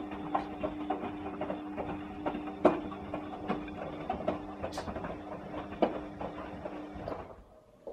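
Bosch WAE 20165 washing machine running: a steady hum with irregular clicks and knocks, which stops about seven seconds in, then a single click near the end.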